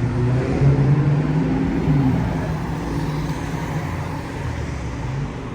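A road vehicle's engine running as it passes along a city street, with a low pitched drone that rises a little and then slowly fades near the end, over general traffic noise.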